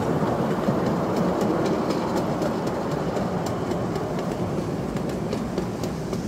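A 7¼-inch gauge ride-on miniature railway train rolling past: a steady rumble of wagon wheels on the rails with light clicks over the rail joints, easing slightly as the wagons move away.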